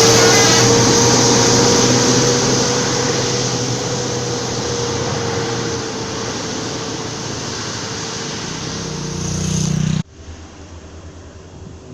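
Large intercity bus just after sounding its telolet horn: the horn's last notes at the very start, then the steady engine and road noise of the bus, slowly fading. About ten seconds in it cuts off suddenly to a much quieter steady hum.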